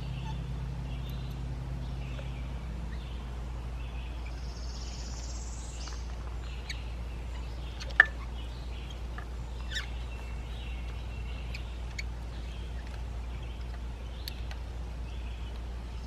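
Birds chirping over a steady low hum, with a single sharp click about eight seconds in and a few fainter clicks.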